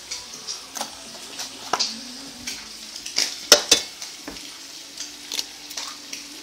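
Eggs frying in a pan: a steady sizzle broken by a series of sharp clicks and pops, the loudest a little past halfway.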